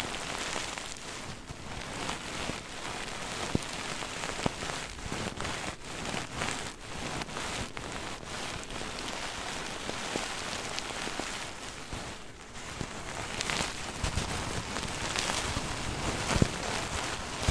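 Plush sheep pillow being rubbed and scratched close to the microphone: a continuous crackly rustle with many small ticks, dipping briefly about twelve seconds in.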